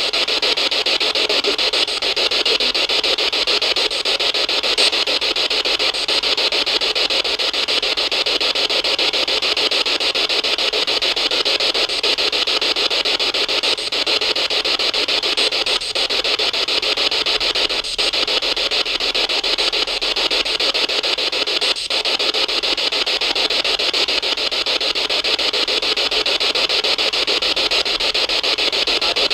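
A steady, even hiss like static, broken by a few brief dips.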